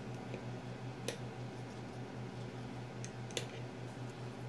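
A few light clicks of engine parts being handled over a steady low hum.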